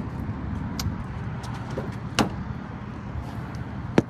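Steady low rumble at a fuel pump, with a few sharp clicks and knocks: one about two seconds in and a very sharp one near the end.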